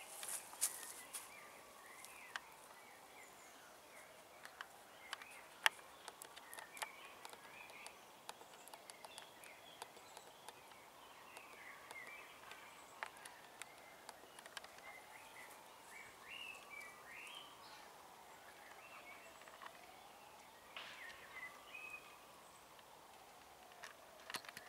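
Small birds chirping in short, scattered calls. Under them runs a faint tone that slowly rises and falls about every four seconds, and there are a few light clicks.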